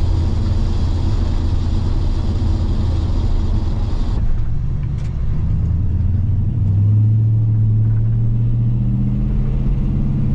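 Gen 3 Ford Coyote 5.0 L V8 running steadily while the truck is driven. About two-thirds of the way in, the engine note steps up in pitch and gets slightly louder.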